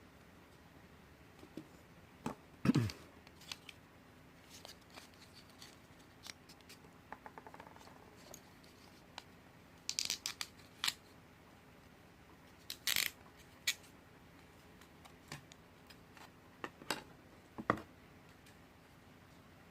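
Irregular small clicks, snaps and scrapes of something small being handled by hand, with a few sharper snaps about 3, 10, 13 and 18 seconds in.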